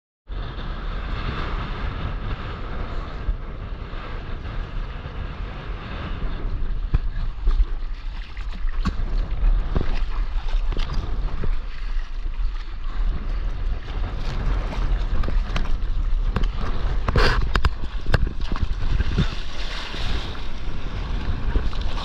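Wind buffeting the microphone on a stand-up paddleboard in a steady low rumble, while choppy waves slap and splash against the board with many short sharp hits.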